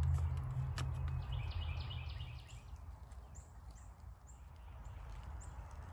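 Outdoor woodland ambience. A low rumble fades out in the first second and a half, with a single sharp click about a second in. A bird then calls a series of short, high chirps, about two a second near the end.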